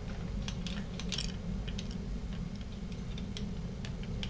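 Scattered light clicks and taps, irregular, with a small cluster about a second in: small metal engine parts and tools being handled during assembly, over a steady low hum.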